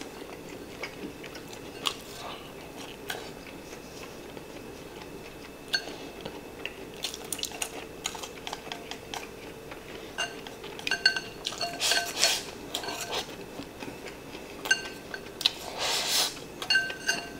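Chopsticks clicking and scraping against a ceramic rice bowl while eating, the clinks ringing briefly; they come in quick clusters in the second half, with two louder rustling stretches as rice is shoveled in from the bowl's rim.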